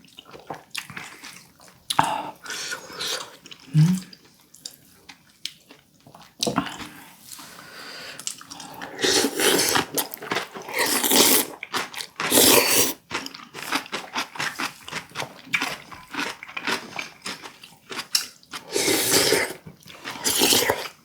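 Mukbang eating sounds: wet slurping and sipping of rice porridge and duck broth, with chewing and small spoon clicks, coming in irregular bursts, the loudest slurps about halfway through and near the end.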